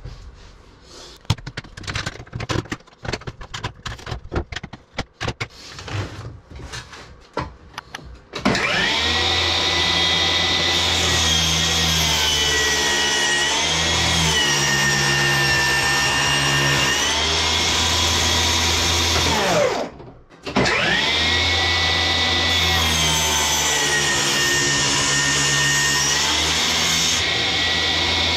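A high-pitched electric woodworking power tool running for about eleven seconds, its pitch dipping slightly midway, then stopping and running again for about eight more seconds. Before it starts, a few seconds of irregular light knocks and clicks from handling wood.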